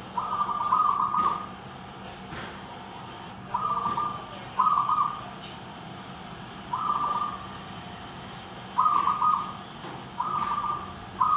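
Zebra doves (perkutut) cooing back and forth: about seven short, rapid trilled coos, each under a second, one to two seconds apart. A faint steady low hum runs underneath.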